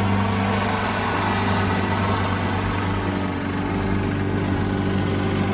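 Walk-behind gas lawn mower engine running at a steady speed while it is pushed across grass.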